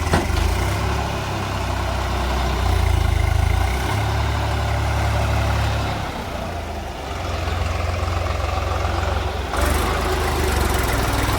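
Heavy diesel engine of earth-moving machinery running, its deep rumble swelling and easing over several seconds. There is a brief sharp knock right at the start.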